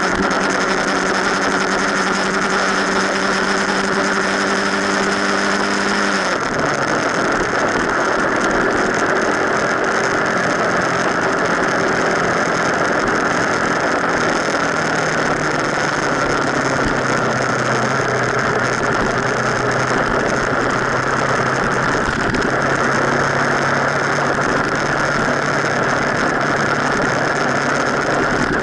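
Motorcycle engine running under way, with heavy wind and road rush on a camera mounted on the front fork leg. About six seconds in the engine note drops in pitch and later settles at a lower steady note.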